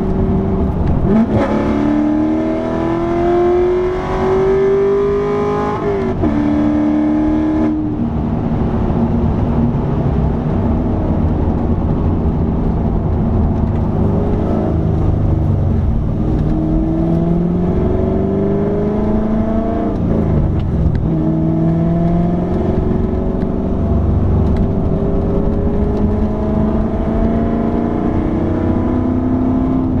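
C7 Corvette Stingray's 6.2-litre LT1 V8 through a loud exhaust, heard inside the cabin, pulling through the gears of its manual gearbox. A hard pull in the first few seconds ends abruptly about a quarter of the way in. The engine then accelerates more gently, its note climbing and dropping back at each of three upshifts.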